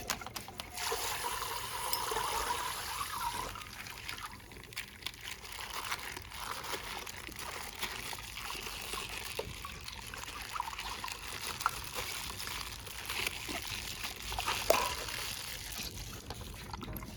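Coloured water trickling and dribbling out of a burst plastic bag, with scattered small clicks from the handled plastic.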